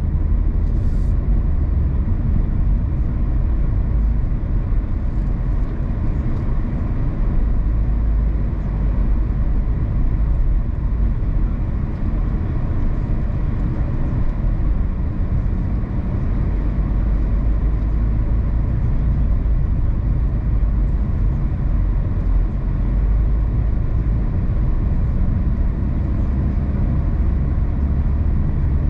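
A car driving steadily on the road: a continuous low rumble of tyres and engine, with no change in speed.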